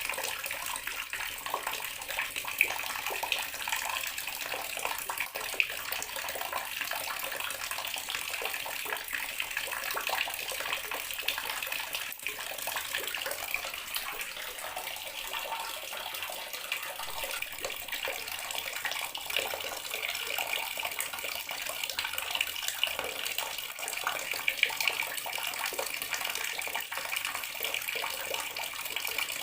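Water running from a tap into a bathroom sink in a steady stream, splashing and gurgling evenly.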